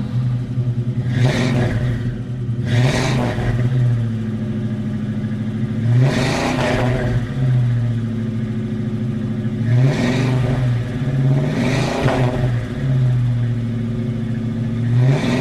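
Car engine running with a steady low note, revved up and back down repeatedly, about six times.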